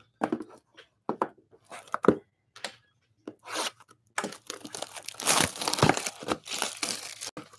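Plastic wrapping on a box of trading cards being torn open and crinkled: scattered short rips and rustles, then a longer stretch of dense crinkling from about four seconds in.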